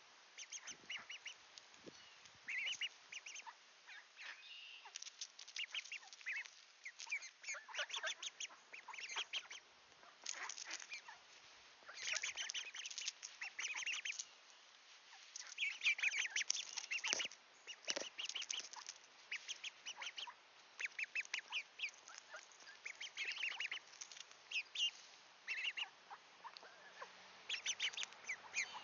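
A group of young mallard ducks calling: rapid runs of short, high-pitched peeping quacks from several birds, overlapping, with brief pauses between runs.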